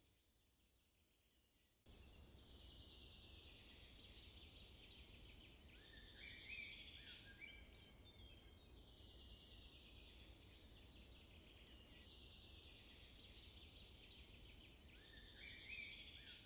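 Faint forest ambience: many small birds chirping and calling over a low steady rumble, starting after about two seconds of near silence.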